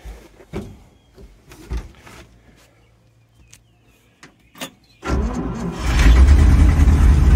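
International Loadstar 1700 truck engine being started: a few clicks and knocks, then about five seconds in the starter cranks briefly and the engine catches and runs loud and steady.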